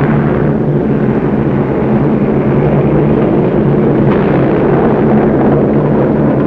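Steady, loud droning noise with a low hum under it.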